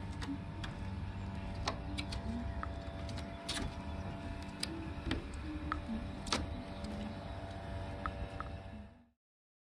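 A steady mechanical hum carrying several steady tones over a low rumble, with scattered short clicks and chirps; it fades out about nine seconds in.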